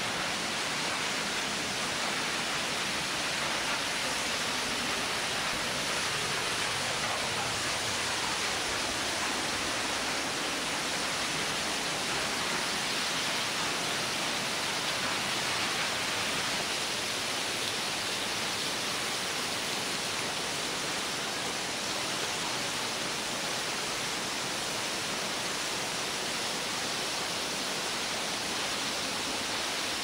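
Mountain waterfall: a steady, unbroken rush of falling water, strongest in the high range.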